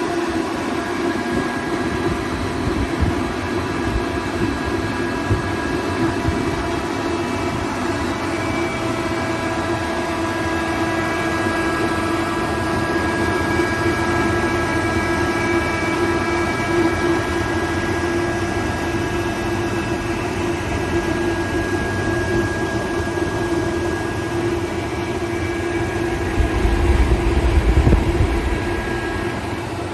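ALUP SCK 21-08 15 kW rotary screw air compressor running under load while it pumps a receiver up toward 8 bar: a steady hum with a constant whine. Near the end a deeper rumble swells for a couple of seconds, then the sound eases slightly.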